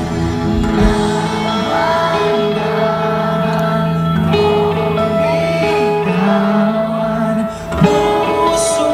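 Live band music played loud over a PA: a man singing while strumming an acoustic guitar, backed by electric guitars, heard from within the crowd.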